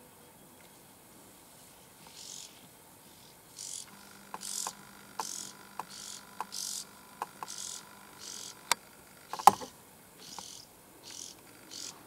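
Short, high, rasping insect chirps repeating about twice a second, with a few sharp clicks among them. The loudest is a single snap about nine and a half seconds in.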